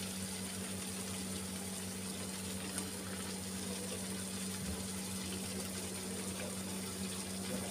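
Stuffed capsicums frying in a pan of hot oil: a steady sizzle, with a steady low hum underneath.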